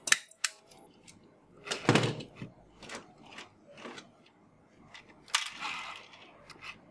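Hard plastic toys being handled and knocked together as a hand rummages through a cardboard box of toys: a series of clicks and clatters, loudest about two seconds in, with a rustling stretch near the end.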